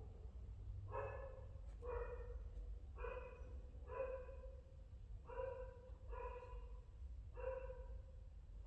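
A small animal giving short calls of steady pitch, about eight of them at roughly one a second.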